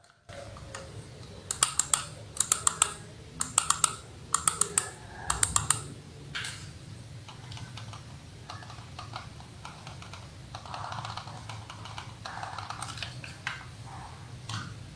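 Computer mouse buttons, a Logitech mouse with newly fitted Kailh silent switches, being clicked as a sound test. The clicks come in quick bunches of three or four, about five bunches in the first six seconds, then fainter, scattered clicks.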